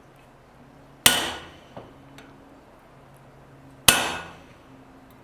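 Two hand-hammer blows on hot steel at the anvil, about three seconds apart, each ringing out for about half a second, as a slot is punched through the tong stock.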